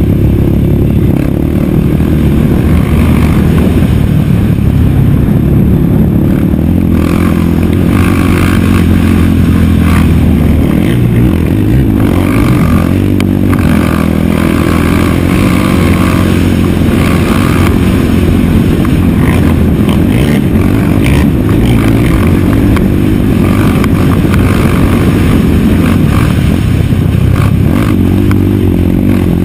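Race quad (ATV) engine running hard, its pitch rising and falling as the throttle opens and closes.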